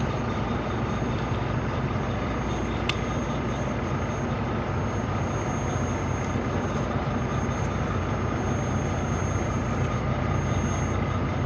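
Steady low drone of an engine running at idle, with one faint click about three seconds in.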